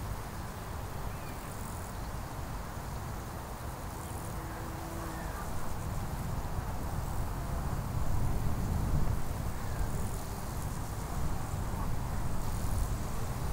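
Outdoor ambience: a steady low rumble that gets louder about two-thirds of the way through, with faint high buzzing that comes and goes.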